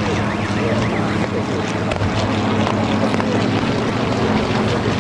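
A vehicle engine running steadily, with wind on the microphone.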